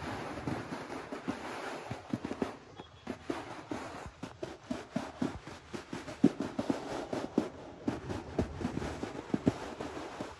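Snow crunching in a run of irregular knocks, several a second, with a short lull about two and a half seconds in.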